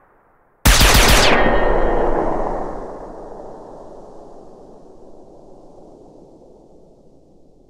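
Sound effect of a suppressed handgun shot with ricochet. It starts suddenly about half a second in with a quick rattle of sharp hits, stays loud for about two seconds, then trails off in a long echoing tail that fades over several seconds.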